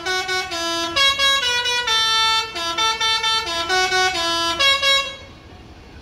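Multi-trumpet telolet air horn on a coach bus playing a quick tune, several notes sounding together and stepping from pitch to pitch every fraction of a second. It stops about five seconds in.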